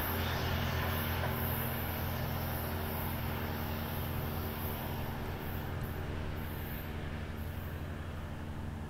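A passenger train's diesel locomotives drone steadily over the rumble of the rolling cars as the train moves away, the sound fading slowly.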